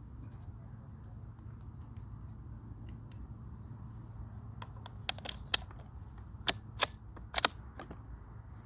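Several sharp, short cracks and clicks from a Diana R-22 .22 LR rifle, some in quick pairs, starting about halfway in, over a steady low hum.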